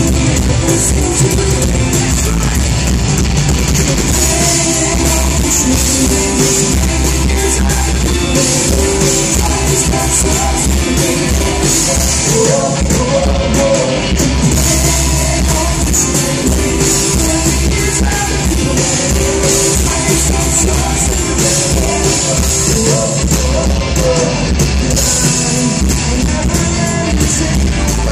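Live rock band playing a song through a festival PA: electric guitars, bass, drums and keyboard, with a male lead vocal, heard from among the crowd.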